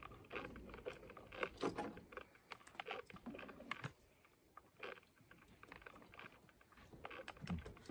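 Faint, irregular clicks, taps and rustling of an electrical extension cord and its plug being handled.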